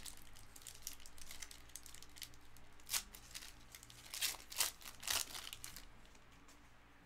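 Wrapper of a trading-card pack being torn open and crinkled by hand, in a few short crackly bursts between about three and five seconds in.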